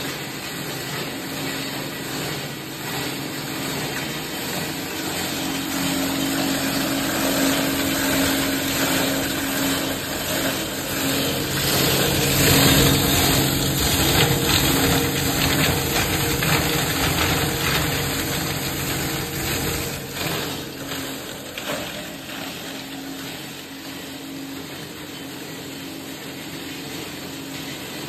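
Plastic scrap grinder running with a steady motor hum while its blades chop plastic scrap fed into the hopper, making a dense crackling clatter. The clatter grows louder around the middle and eases off toward the end.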